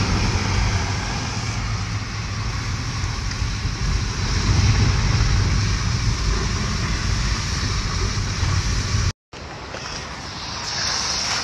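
Car cabin noise while driving on a wet, slushy road: a steady low engine and road rumble with tyres hissing through the water. About nine seconds in it cuts off abruptly, and wind noise on the microphone follows outdoors.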